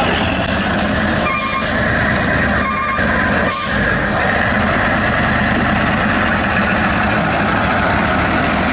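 Diesel engine of a heavy self-loader truck loaded with an excavator, running steadily. A few short beeps sound in the first three seconds.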